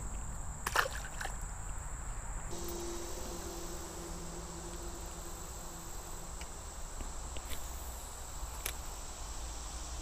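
Steady high-pitched buzzing of insects, with a low rumble underneath and a few faint clicks.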